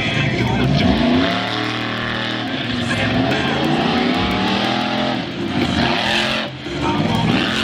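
Pickup truck's engine revving hard as it charges a ramp and jumps a pile of crushed cars, its pitch climbing and falling several times as the driver works the throttle.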